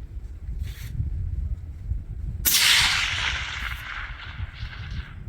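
A single rifle shot about two and a half seconds in, its report echoing and rolling away across the range for a couple of seconds, over low wind rumble on the microphone.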